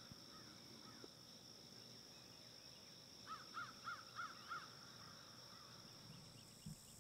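A crow cawing faintly, a quick run of five caws lasting about a second, over a steady faint high-pitched hum.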